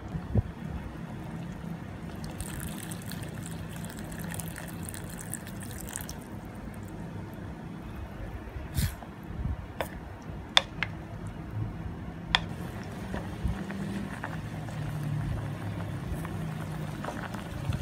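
Green curry simmering and bubbling in a stainless steel pot as a wooden spoon stirs it, with a few sharp knocks of the spoon against the pot a little past the middle.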